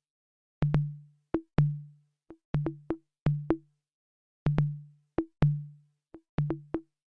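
Music: a sparse drum-machine beat of short electronic kick-drum and tom hits in a repeating rhythm, with silence between the hits.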